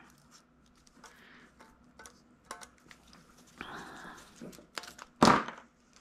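Faint clicks and scraping of a plastic network cable stripper being worked on the thick jacket of Belden DataTuff tactical Cat6 cable, with a short rasping stretch about four seconds in. A single louder knock comes just after five seconds.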